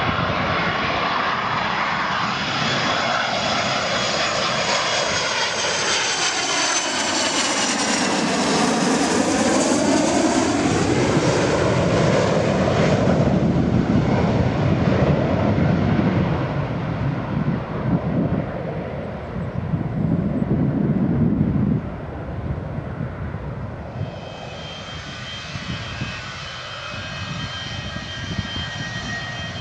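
Boeing 737-200's Pratt & Whitney JT8D turbofan engines passing low overhead on landing approach, loudest about ten seconds in, the tone sweeping down and back up as it goes over, then dying away. Near the end the jet is on the runway and its engines whine with steady high tones, at a lower level.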